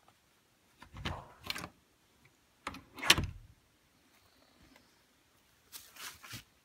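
Exterior door's lever handle and latch being worked as the door is opened and shut, in three bursts of clicks and knocks, the loudest a sharp latch click about three seconds in. The latch catching shows that the door, after its frame was shimmed and realigned, now lines up with the striker.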